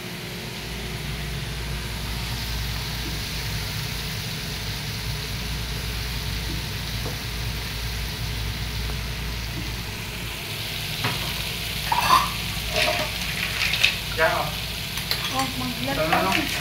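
Food frying in hot oil in a wok, a steady sizzle. From about two-thirds of the way in, a metal utensil scrapes and clanks against the pan as the food is stirred.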